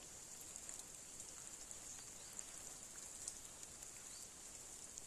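Faint steady outdoor ambience over flooded fields: an even hiss, strongest in the high range, with a few faint ticks.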